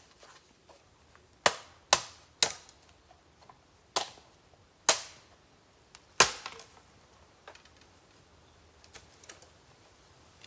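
Burning bamboo bursting in a bonfire: six sharp, loud pops in the first two thirds, spaced about half a second to a second and a half apart, with a few small crackles between and after them, as sealed bamboo sections burst in the heat.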